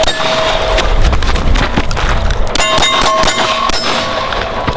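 Semi-automatic pistol shots fired at steel plate targets, each hit followed by the plate ringing with a metallic clang. A shot and a ring start it, then after a lull of about two seconds comes a fast string of shots with the plates ringing.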